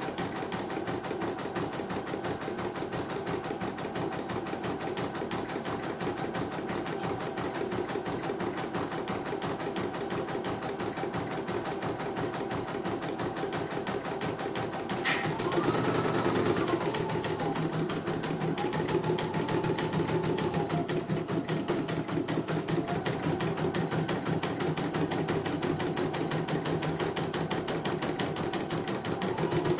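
CNY portable computerized embroidery machine stitching a design: a steady, rapid run of needle strokes. About halfway there is a sharp click, after which the pitch briefly rises and falls before the stitching carries on; a similar rise comes near the end. The machine is stitching smoothly on a test run after repair of a dead, no-power fault.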